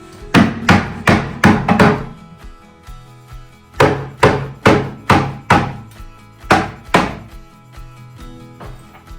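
Hammer blows on masonry shelving being knocked out: a quick run of about five strikes, a pause, about six more, then two last blows.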